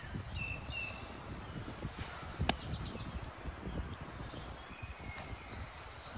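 Small birds chirping in short calls over close rustling and crumbling of soil and roots being dug out and lifted by gloved hands, with a single sharp click about two and a half seconds in.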